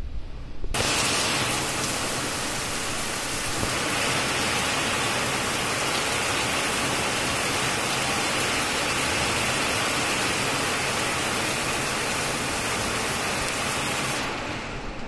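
Heavy rain pouring down, a dense steady hiss. It starts suddenly under a second in and softens slightly near the end.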